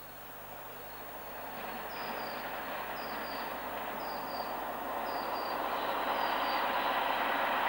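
An approaching train's rumble growing steadily louder. A bird repeats a short, high double chirp about once a second.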